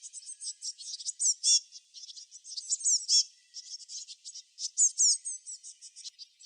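Small songbirds chirping busily, a dense overlapping run of short high-pitched chirps and quick falling whistled notes.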